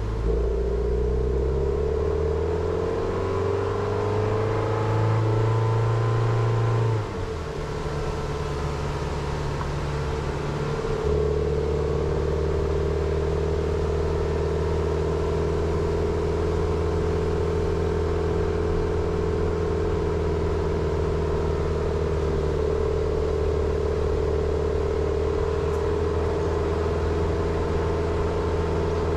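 Jeep Renegade's engine while driving: its pitch rises steadily as the car accelerates over the first several seconds, falls abruptly about seven seconds in, then holds a steady pitch.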